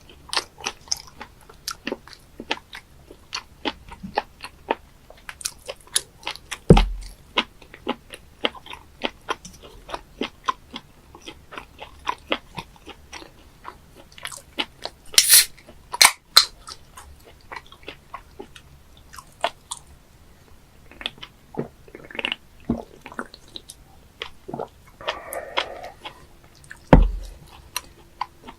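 Close-up chewing and biting of live octopus: a steady run of short clicks and crunches, with a few louder knocks.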